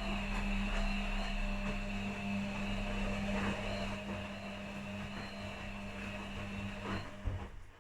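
Washing machines running a quick wash cycle: a steady motor hum with a faint high whine, which stops with a click about seven seconds in.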